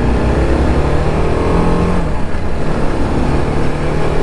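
TVS Apache RR 310's single-cylinder engine running under way, its pitch rising gently over the first two seconds and then holding steady, over low wind rumble.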